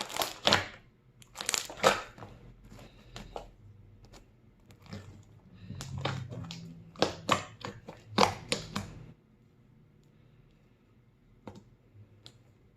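Hands kneading and pulling sticky slime with a lump of hard rubbery putty in it, making a quick run of short wet squelching sounds. The squelching stops about nine seconds in, leaving only a few faint ticks.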